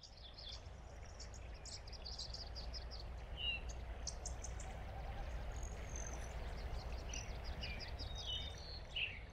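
Outdoor ambience: several small birds chirping and trilling over a steady low rumble, fading in over the first second.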